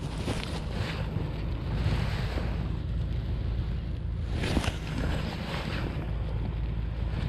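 Wind rumbling on the microphone over water sloshing against a log fishing raft, with a few short knocks and rustles from handling the rod and reel, the loudest about four and a half seconds in.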